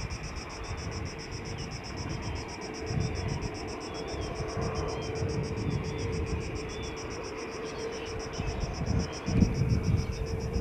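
A steady, rapidly pulsing chorus of insects with a few faint bird chirps, over the faint low rumble and steady hum of an Airbus A320's jet engines approaching from a distance.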